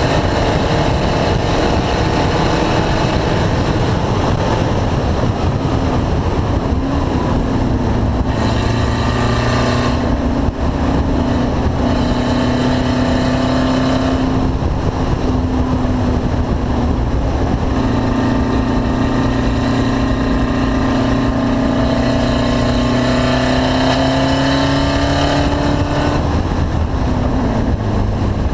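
Car engine running hard on a race track, its pitch climbing slowly and then dropping off several times, as with upshifts or lifts off the throttle.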